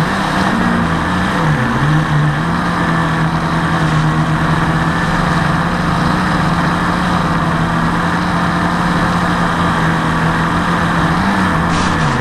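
Blade 350 QX quadcopter's brushless motors and propellers running in flight, heard from its onboard camera. It is a steady hum that wavers up and down near the start and again near the end, over a rushing of strong wind and prop wash.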